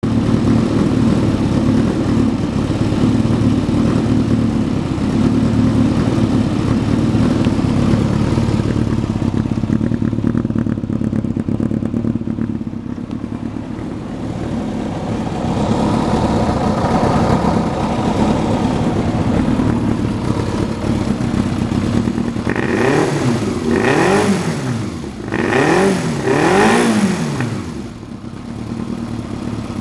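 Yamaha XJR400R's air-cooled inline-four running through an RPM aftermarket muffler: a steady idle, then a few quick throttle blips that rise and fall in pitch near the end.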